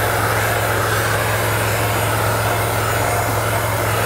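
Handheld blow dryer running steadily, blowing hot air onto a plastic car bumper: a constant low hum under an even rush of air.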